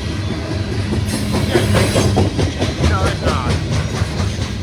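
Loaded coal train's cars rolling slowly past: a steady low rumble, with a run of wheel clicks over the rail joints in the middle.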